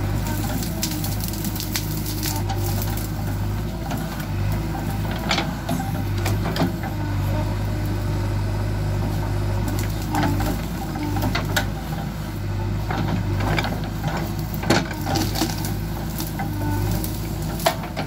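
JCB 3DX backhoe loader's four-cylinder diesel engine running steadily under load, with irregular sharp cracks and snaps of branches and brush breaking as the backhoe bucket tears through scrub.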